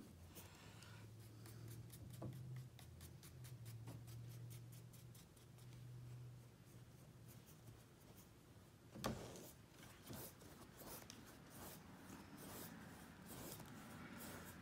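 Faint swishing and scratching of a paintbrush stroking paint across a stretched canvas, with one sharper knock about nine seconds in.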